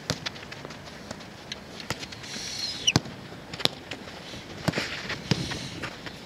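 Soccer ball being kicked and passed on an artificial-turf pitch: an irregular run of sharp thuds, the loudest two close together about three seconds in.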